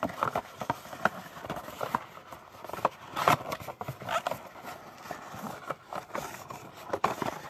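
Cardboard trading-card box and card packs being handled and opened by hand: an irregular string of rustles, scrapes and clicks, with a few louder ones.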